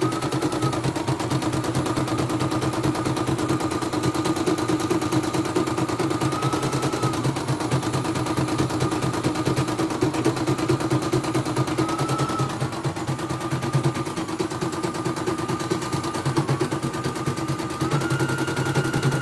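CNY E900 portable embroidery machine stitching steadily: rapid, even needle strokes over a motor whine that rises briefly in pitch a few times. It runs smoothly through one layer of stiff interfacing on its newly replaced power supply and motor.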